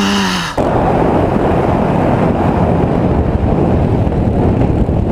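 A short cry from a person, falling in pitch, cut off about half a second in. Then loud wind buffeting a helmet camera on a moving motorcycle, with the motorcycle's engine running underneath.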